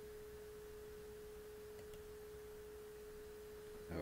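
A faint, steady single-pitched electronic tone, held without change.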